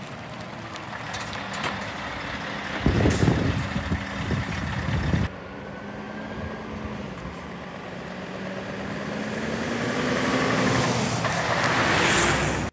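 Scania R580's V8 diesel engine running as the tractor unit drives by: loud as it passes close a few seconds in, then, after a cut, a steady engine note that grows louder as it approaches and passes close near the end.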